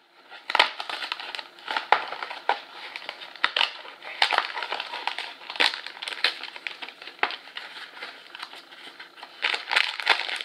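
A paperboard snack box being torn open along its opening flap: irregular crackling and tearing of the card, with the foil inner bag crinkling near the end.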